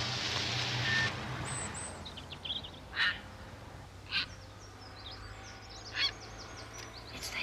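A rushing noise for about the first second, then pond birdlife: small birds chirping and four loud calls from waterfowl, spaced a second or two apart.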